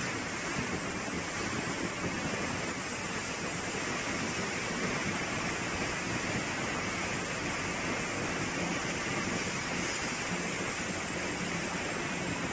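Drying and polishing machine for wooden coffee stirrers running, its rotating drum giving an even, unbroken rushing noise.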